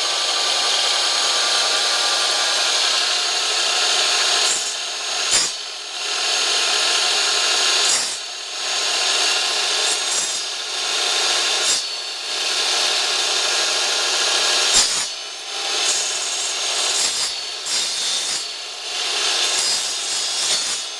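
Electric power saw cutting through a wooden board, its motor running with the blade in the wood. The sawing noise briefly dips about five times along the cut.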